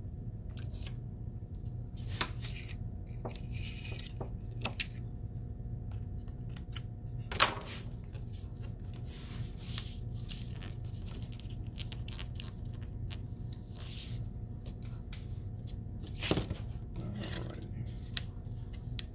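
Metal HVAC duct tape being laid onto a board and pressed and rubbed down by hand: crinkling, rustling and scattered clicks, with a sharper tap about seven seconds in.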